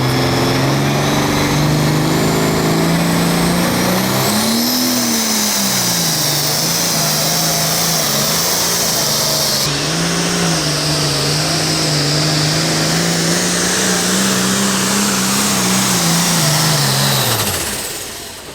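Pro Farm pulling tractor's turbocharged diesel engine running flat out under load down the track, its pitch wavering as the engine speed surges, over a high turbo whine. Near the end the engine note falls and the sound dies away as the driver lets off.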